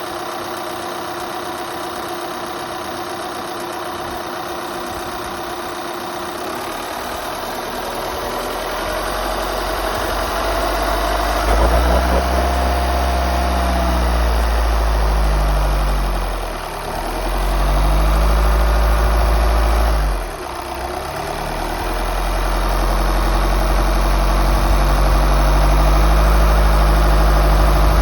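Volkswagen T6 van's engine running smoothly and evenly, no longer coughing. It grows louder and deeper partway through and dips briefly twice.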